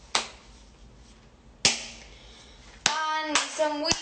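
Two sharp hand claps about a second and a half apart, each ringing briefly in a small hard-walled room, then a voice sounding near the end.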